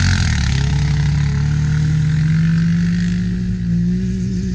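A sport ATV accelerating hard on sand, with a loud hissing rush of thrown sand that fades out about three seconds in, over the steady engine of a side-by-side UTV whose pitch slowly rises as it pulls away.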